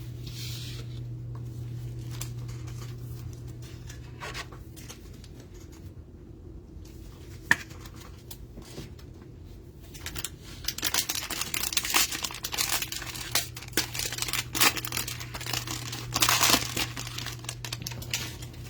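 Trading card packaging being torn open and crinkled, with dense crackling from about ten seconds in to near the end. A single sharp click comes about seven and a half seconds in, over a steady low hum.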